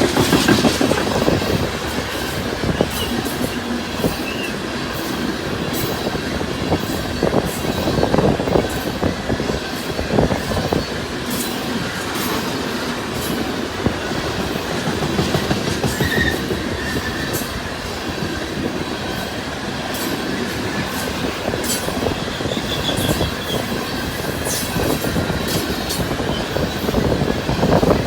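Loaded coal hopper cars of a freight train rolling past, a steady rumble with steel wheels clicking over the rail joints. A few brief wheel squeals come and go.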